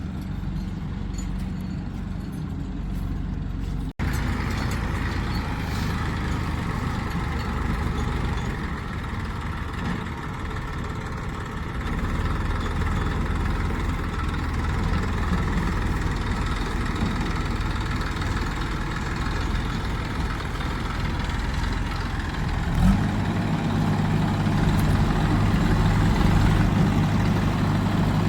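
Heavy diesel machinery engines running continuously, with an abrupt cut about four seconds in. About 23 seconds in, a brief knock is followed by a steadier, more even engine hum.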